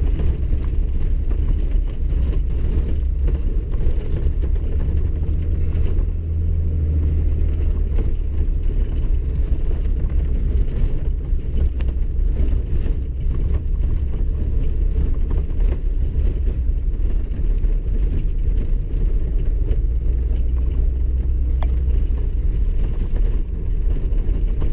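Road noise inside a vehicle's cab driving slowly on an icy, snow-packed road: a steady low rumble of tyres and engine, with many scattered small clicks and knocks.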